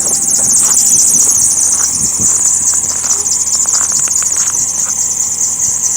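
A Jaguar car gives off a steady, high-pitched squealing whine with a fast pulsing edge. It is the constant unexplained noise the car makes all the time, even with the engine shut off.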